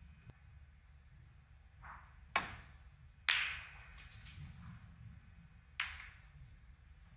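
Snooker balls clacking: three sharp clicks of cue tip on ball and ball on ball, about two and a half, three and a third, and nearly six seconds in, the middle one the loudest. Underneath is a faint, steady hush of a quiet arena.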